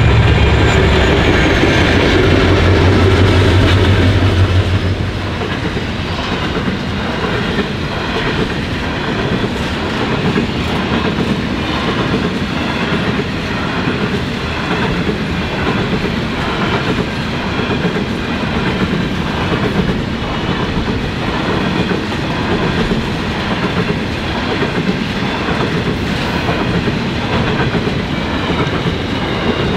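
Pacific National diesel locomotives 8134 and XR559 passing with a deep engine drone, which drops away about four seconds in. Empty grain hopper wagons then roll by with a steady, rhythmic clatter of wheels over the rail joints.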